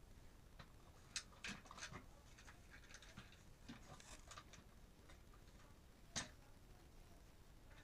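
Faint clicks and light knocks of a hard plastic toy train and its coach being handled and shifted, with a cluster of clicks between one and two seconds in and one sharper click about six seconds in.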